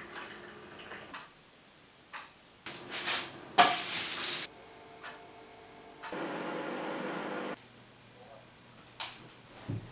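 A string of short, separate kitchen sounds, opening with a faint trickle of hot water from a gooseneck kettle into a pour-over coffee filter. The loudest is a dense hiss lasting about a second, a little over three seconds in. A steadier hiss follows for about a second and a half after six seconds, and there is a sharp click near the end.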